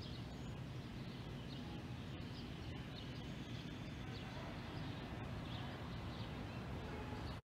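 Outdoor ambience: a steady background noise bed with faint, scattered bird chirps.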